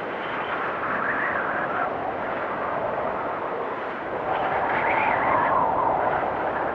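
Blizzard wind blowing steadily, swelling into a gust about a second in and a stronger, higher-pitched gust past the middle.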